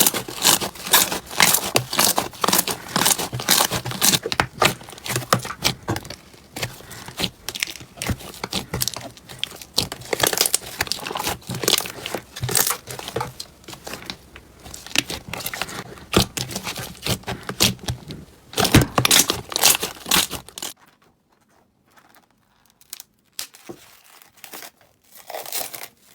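Slime being squeezed and pressed by hand close to the microphone, giving dense, fast crackling and popping. It thins out to sparse, quieter crackles about three-quarters of the way through.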